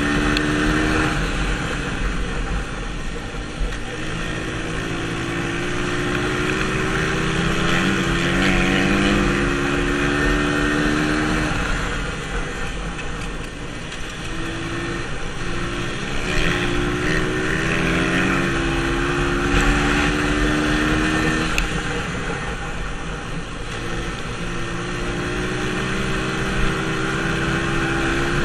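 Dirt bike engine heard from on the bike at speed, its pitch climbing as it pulls down the straights and dropping away three times as the throttle is shut off for the turns.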